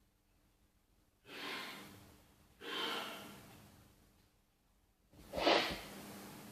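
A person breathing out three times close to a microphone, each breath fading over about a second; the last is the loudest, with a low thump of air on the mic.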